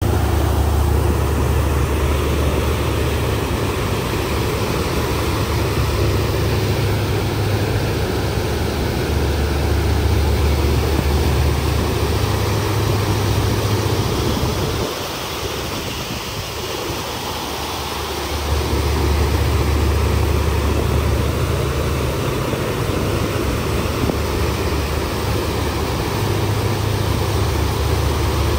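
A passenger boat under way at speed: a steady low engine rumble under the rush of its churning wake. The low rumble drops away for a few seconds just past the middle, then returns.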